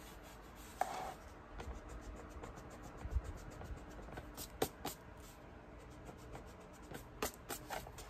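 Faint rubbing and scratching of a Prismacolor Col-Erase coloured pencil on sketchbook paper: the lead shading a swatch and the pencil's eraser tip rubbing the colour out, with a few light taps.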